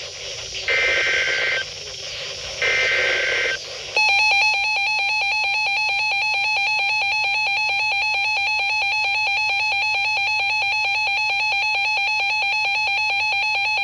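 Emergency Alert System header: two short bursts of warbling SAME digital data tones, then about four seconds in the EAS attention signal starts, a loud steady alarm tone held for about ten seconds, marking the start of a new severe thunderstorm warning.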